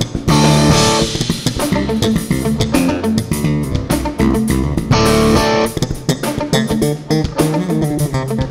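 Live jazz band instrumental: an electric bass plays a fast-moving, busy line over electric guitar and drums, with cymbal crashes about a third of a second in and again about five seconds in.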